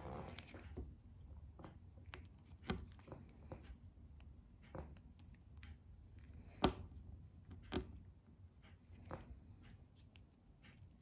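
Small plastic minifigure parts being handled and pressed together, with light rustling and a few sharp plastic clicks, the loudest about six and a half seconds in.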